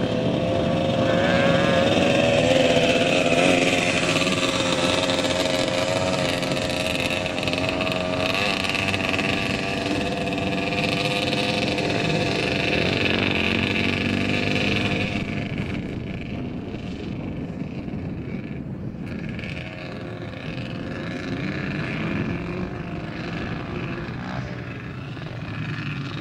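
A dirt bike's engine running as it is ridden around a dirt track, its pitch rising and falling with the throttle. It grows fainter about fifteen seconds in.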